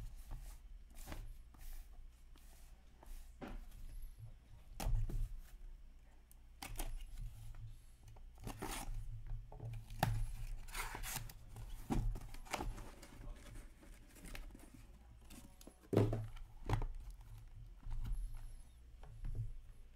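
Cardboard packaging and plastic wrap torn and pulled open by hand, in short scratchy rips, with a few sharp knocks as the card boxes are handled and set down.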